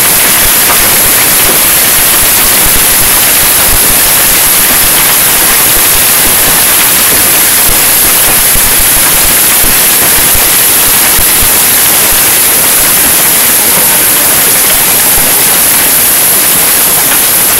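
Heavy hail falling on a corrugated metal patio roof and the yard: a loud, steady hiss of countless small impacts that does not let up.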